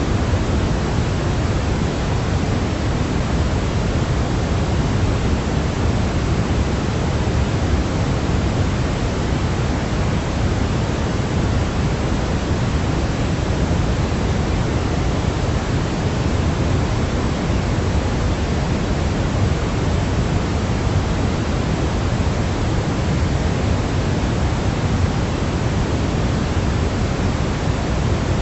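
Steady, unchanging white-noise sleep sound: an even hiss, heavier in the bass than in the treble, with no breaks or changes.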